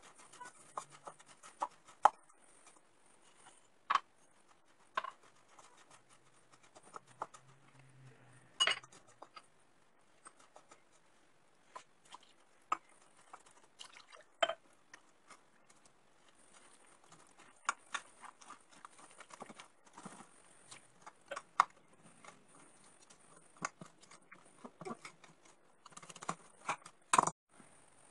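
Faint kitchen handling sounds: hands rubbing and kneading crumbly semolina dough in a glass bowl, and a wire whisk and spoon clicking and knocking against the bowl at irregular moments.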